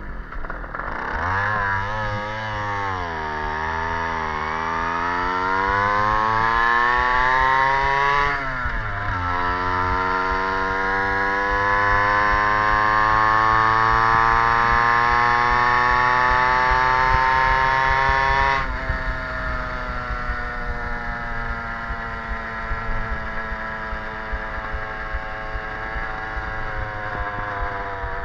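Stadion S11 moped's 50cc two-stroke engine under way: its pitch climbs as it accelerates, drops sharply about eight seconds in and climbs again, then falls back about eighteen seconds in and runs steadier, with road and wind rumble underneath.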